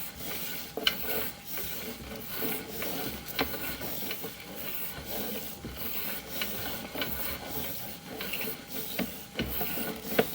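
Sewer inspection camera's push cable being fed down the sewer line: irregular scraping and rubbing with scattered clicks.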